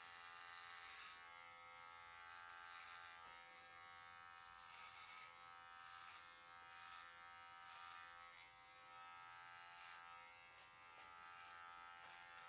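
Electric hair clippers with a guard attached running at a faint, steady buzz while cutting short hair.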